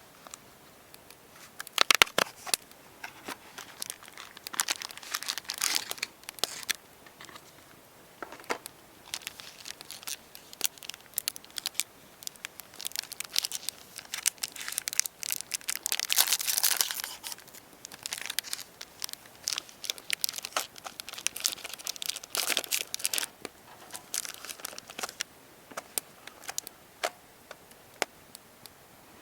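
Irregular crinkling and rustling, scattered with small sharp clicks and taps, as something crinkly is handled by hand. It comes in uneven bursts, busiest about two seconds in and again a little past the middle.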